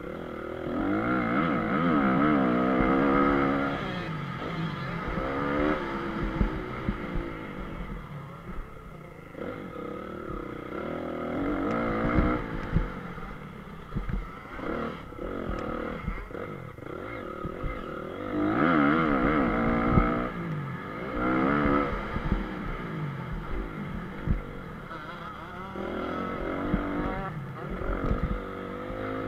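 Honda CRF250R's single-cylinder four-stroke engine revving up and falling back again and again as it is ridden around a motocross track, with occasional sharp knocks.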